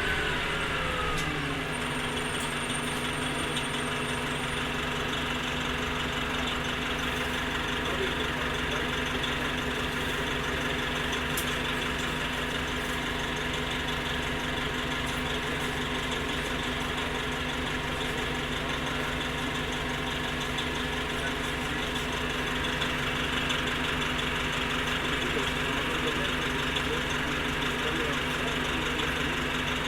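Orion V transit bus engine idling steadily, after a falling whine in the first second or so as the bus winds down.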